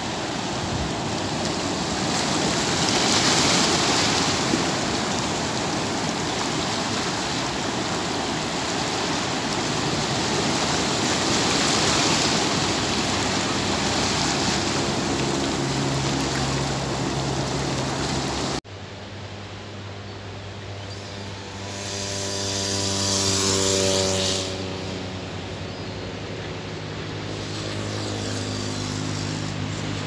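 Sea surf washing in over shoreline rocks, a steady rush that swells twice. After an abrupt cut about two-thirds in it is quieter, with one more swell and a steady low hum of several tones underneath.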